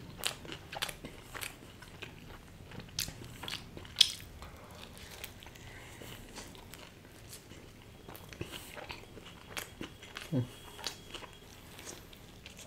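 Close-up eating sounds: bites into a cheese burst pizza and chewing, with scattered short crisp clicks, the loudest about four seconds in.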